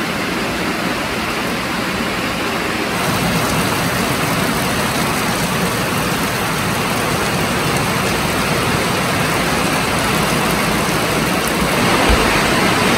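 Heavy rain pouring down, a dense steady hiss. There is a brief low bump near the end.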